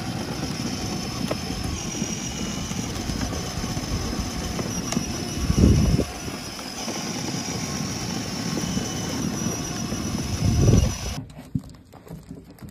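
Battery-powered toy ride-on jeep rolling steadily on asphalt: the rumble of its plastic wheels and the hum of its motor, with two brief louder low rumbles. It cuts off sharply near the end.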